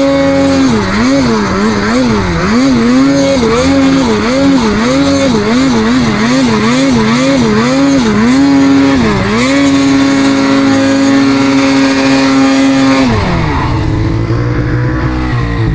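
Snowmobile engine revved up and down over and over, about twice a second, as the rider blips the throttle working the sled through deep powder. About nine seconds in it holds steady at high revs for a few seconds, then drops back near idle.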